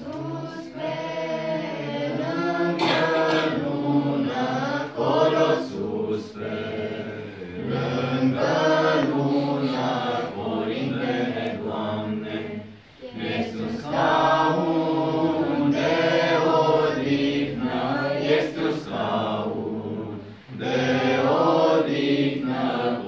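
A group of children singing a Romanian Christmas carol (colindă) together without accompaniment, breaking off briefly between phrases a little past halfway and again near the end.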